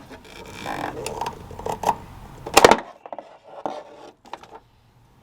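Cutters clicking and scraping as they work at the rubber grommet around the hood release cable, with one loud snap about two and a half seconds in and a few faint ticks after.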